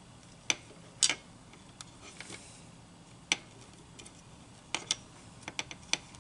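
Light, sharp clicks and taps at irregular intervals, a few early and a quick cluster near the end, from fingers handling a thin two-wire cable and the plastic case of a toy remote while tying a knot in the wire.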